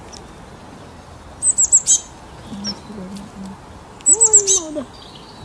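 Small bird calling twice, each time a quick run of four or five high, falling notes, the runs about two and a half seconds apart. A lower call rises and falls under the second run.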